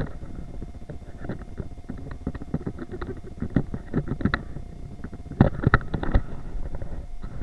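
Handling rumble and rubbing from a handheld action camera carried while walking, with scattered irregular knocks and clicks, a louder cluster of them about two-thirds of the way through.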